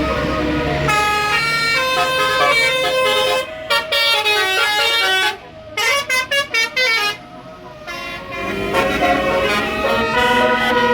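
Tour bus's basuri telolet horn, a multi-trumpet electric air horn, playing a tune of stepping notes. About halfway through it breaks into a run of short staccato toots, pauses for about a second, then plays on.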